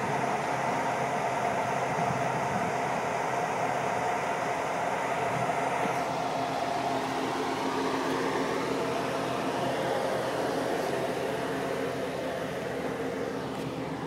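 Steady mechanical hum with a few held tones under a hiss, unchanging throughout.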